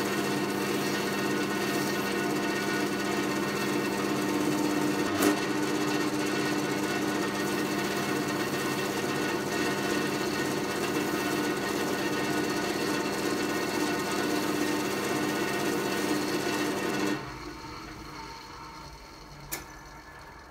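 Wood lathe motor running steadily with a hum while a turned chisel handle spins in the chuck, with a single sharp knock about five seconds in. About three seconds before the end the lathe is switched off and the hum drops away quickly.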